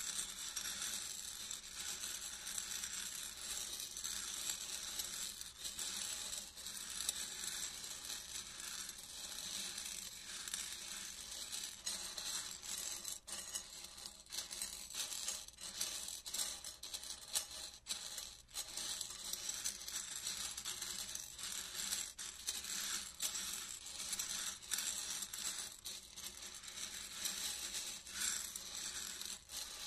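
Dry popcorn kernels rattling and clicking against a ceramic plate as rubber-gloved hands stir and sift through them: a dense, continuous patter of small clicks.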